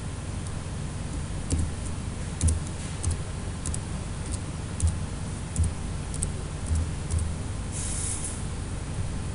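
Computer keyboard keystrokes, a dozen or so separate clicks at an uneven pace while an email address is typed, over a steady low hum. A brief hiss comes about eight seconds in.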